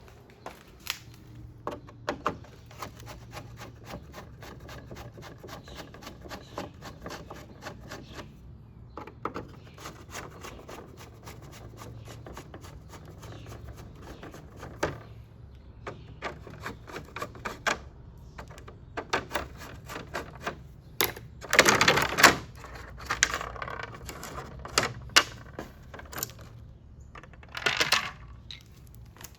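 Rapid metallic clicking in runs from hand tools working loose the fasteners of car body covers, with a louder rattling clatter about 22 seconds in.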